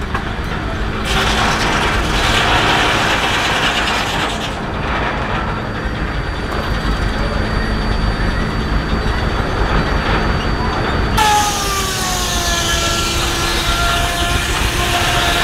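Steam-powered portable sawmill running, its circular saw cutting through a log amid steady mechanical clatter. About eleven seconds in, a pitched whine drops in pitch as the blade takes the cut.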